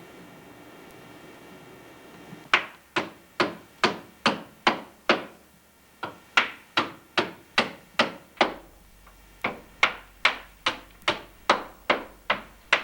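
A hammer striking in a steady series of blows, about two and a half a second, with a short break partway through.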